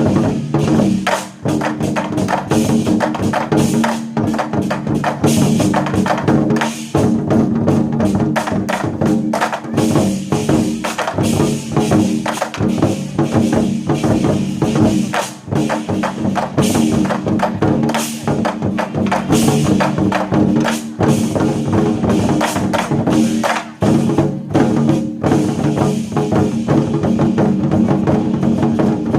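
A troupe of Chinese war drums (zhangu) beating rapid, dense rhythmic strikes in ensemble, over steady sustained tones of backing music.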